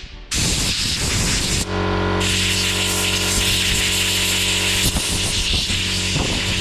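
Loud, steady hiss of a gas jet playing on a diesel heater burner, with a steady hum of several held tones joining about two seconds in.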